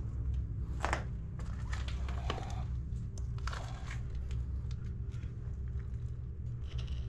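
Scattered crunches and rustles over a steady low hum.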